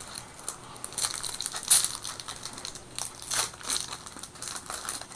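Foil Yu-Gi-Oh booster pack wrapper crinkling and crackling as it is torn open and the cards are pulled out, in a run of irregular crackles.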